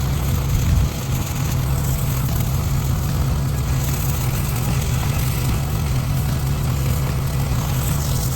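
Pressure washer running steadily: a small engine's even hum with a hiss of spray above it.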